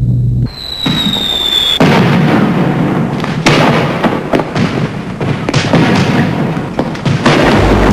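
Fireworks: a rocket goes up with a whistle that falls slightly in pitch, then bursts with a loud bang a little under two seconds in. Further shells follow, with more bangs and crackling.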